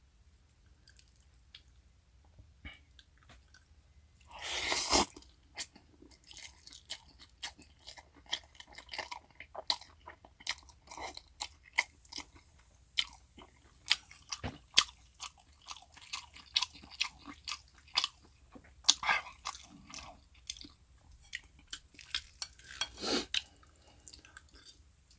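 Close-up chewing of homemade Korean pancake (buchimgae) dipped in soy sauce, eaten with cold spicy bibim noodles: many irregular wet clicks. About five seconds in, and twice near the end, there are longer, louder bursts of noise.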